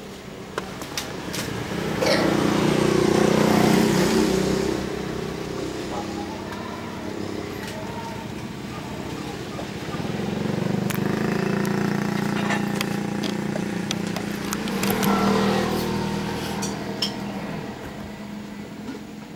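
A vehicle engine running, growing louder and fading away twice, with a few scattered small clicks.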